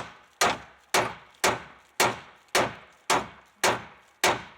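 Hammer striking steel on a truck frame, about nine even blows roughly two a second, each ringing briefly, to knock a stuck, cut-off riveted piece loose.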